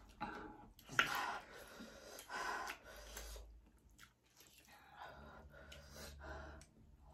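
Close eating sounds of Korean fire noodles: chewing, mouth noises and breathing, with forks working the noodles on the plates and one sharp click about a second in.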